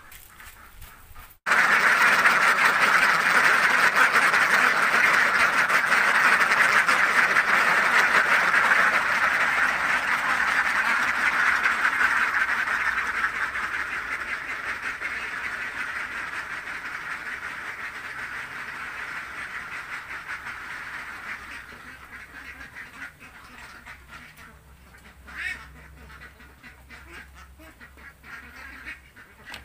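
A large flock of domestic ducks quacking together in a loud, continuous din that starts suddenly a little over a second in, then slowly fades, leaving scattered single quacks near the end.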